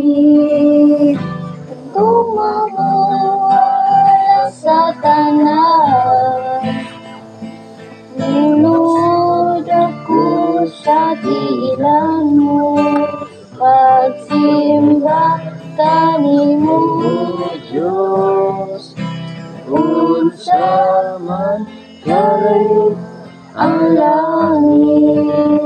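A woman singing a slow melodic song, holding and sliding between notes, with guitar accompaniment.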